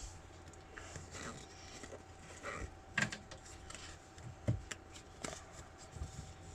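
Pokémon trading cards being handled and flipped through: soft rustling with a few sharp clicks, the clearest about three and four and a half seconds in, over a faint steady hum.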